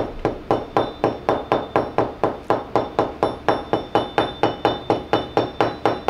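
A copper pipe knocked repeatedly end-down on a paper-covered wooden workbench, about five even knocks a second, each with a short metallic ring. The knocking shakes out black scale that formed inside the pipe from soldering it without nitrogen.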